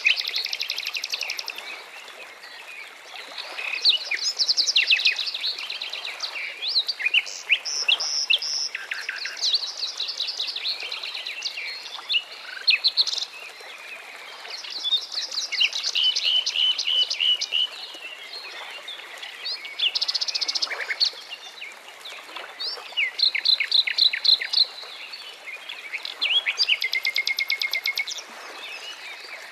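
Songbirds chirping and trilling, one high phrase after another and sometimes overlapping, over a faint steady hiss.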